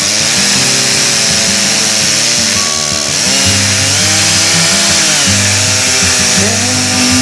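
Chainsaw on a chainsaw mill cutting lengthwise through a birch log, running steadily under load, mixed with mellow background music.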